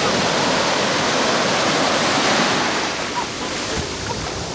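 Sea wave breaking and washing close by in shallow surf: a loud rush of foaming water that fades after about three seconds.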